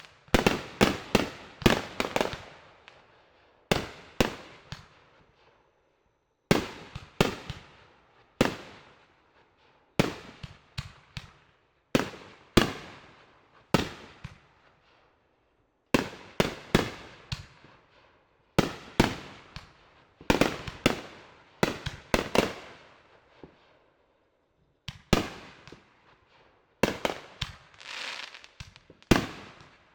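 Fireworks exploding in a display: clusters of sharp bangs every couple of seconds, each bang trailing off in an echoing rumble, with brief quiet gaps between volleys.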